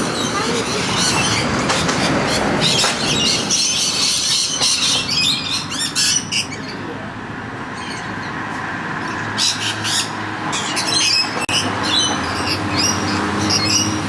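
Parrots squawking and chattering in short, high calls, in two spells, over a steady low rumble of city background noise. A low, steady drone joins about halfway through.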